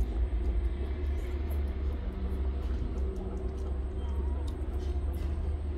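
A steady low mechanical rumble with a faint hum above it.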